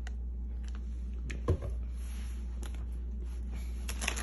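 Light kitchen handling sounds over a steady low hum: a few faint clicks and one short low thump about a second and a half in.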